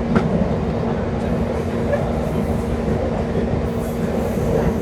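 MEMU train running along the track, heard from inside the coach: a steady rumble of wheels on rails, with one short click just after the start.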